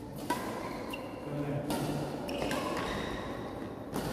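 Badminton rally: rackets striking the shuttlecock as sharp hits every second or so, with short high squeaks of court shoes on the floor in between.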